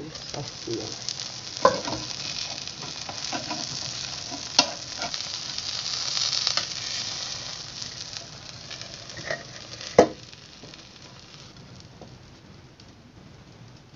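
Tomato and egg omelette sizzling in a frying pan as the lid comes off, the sizzle fading away after about eight seconds. Three sharp knocks against the pan stand out, the loudest near the end.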